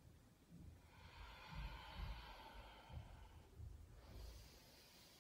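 Faint breathing of a woman moving through repeated cobra poses: one long breath from about a second in to nearly four seconds, and another starting near the end. Soft low bumps come from her body moving on the mat.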